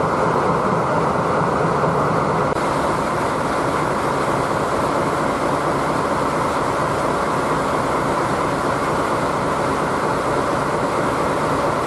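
Steady rushing noise of a train standing at a station platform, with no single knocks or rhythm.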